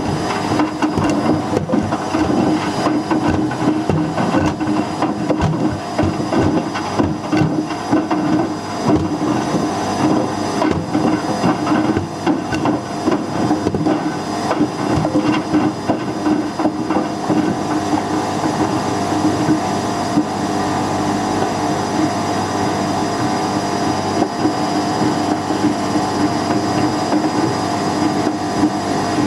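Whirlpool WWDC 7210/1 washing machine drum turning with loose hard objects rattling and clattering inside it, over a steady motor hum. The clatter thins out a little over halfway through, leaving a smoother, steadier churning.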